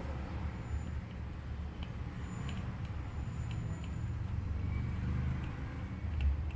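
A steady low rumble, with a few faint light clicks scattered over it.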